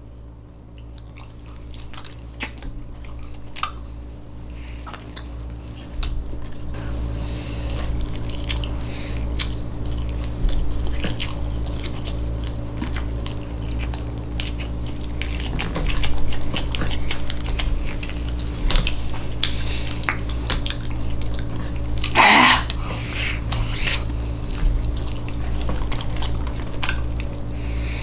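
Close-miked chewing and biting of canned Spam: many short, wet clicks and smacks over a steady low hum, louder from about six seconds in, with one stronger wet burst about 22 seconds in.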